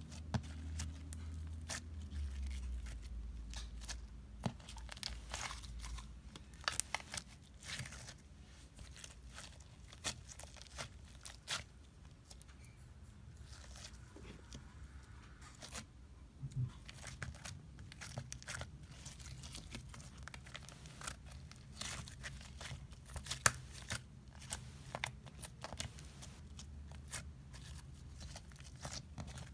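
Homemade confetti slime being squished and stretched by hand, giving irregular sticky clicks, crackles and pops. A low rumble sits underneath during the first six seconds, then stops.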